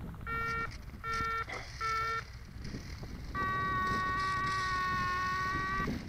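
Electronic beeps from the RC telemetry system: three short beeps about 0.7 s apart, then a long steady tone of about two and a half seconds, over a steady low background noise.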